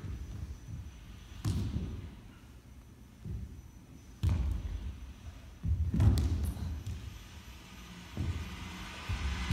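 Dancers' bare feet and bodies thudding on a studio floor: several dull, irregularly spaced thuds as they drop, roll and step.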